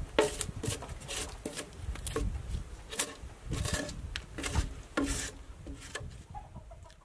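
Drawknife peeling bark off a log in repeated, uneven scraping strokes, fading out near the end.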